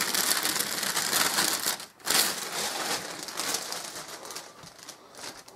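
Clear plastic bag crinkling and rustling as it is pulled up and off a small flat-screen TV. There is a brief pause about two seconds in, and the sound fades toward the end.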